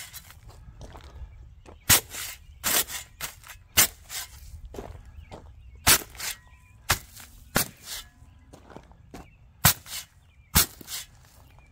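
Steel shovel blade chopped down onto 80-pound paper bags of dry concrete mix, splitting them open. There are about eight sharp strikes at uneven spacing, with lighter crunches in between.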